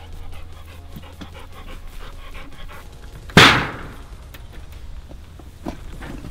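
Pit bull-type dog panting in short, quick breaths. About three and a half seconds in there is one loud, sudden rushing burst that dies away within half a second.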